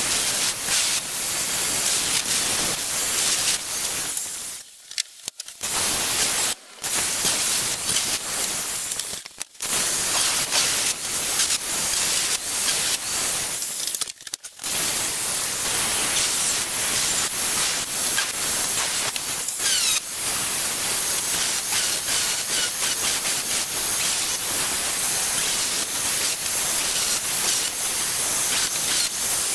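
Angle grinder cutting through a steel circular saw blade: a steady, harsh grinding hiss of the disc on steel, broken by a few short pauses in the first half.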